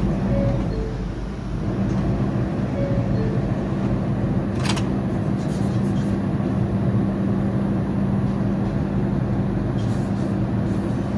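R142 subway train's two-note door chime, sounding twice as the doors close, then the train's motors and wheels running steadily as it gets under way, with a short metallic clank about five seconds in.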